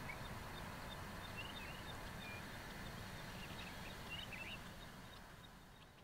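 Quiet outdoor background noise with a few faint, short bird chirps scattered through it, most between about one and five seconds in.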